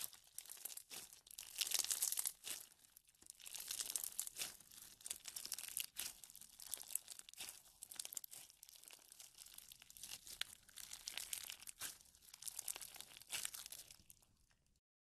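Clear slime packed with small clear beads being squeezed and kneaded by hand, giving dense crackling and crunching that comes in waves with each squeeze. It cuts off abruptly just before the end.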